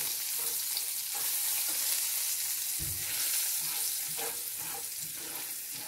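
Hot oil sizzling in a frying pan with a spice tempering of chopped coriander and turmeric, while a silicone spatula stirs it round the pan.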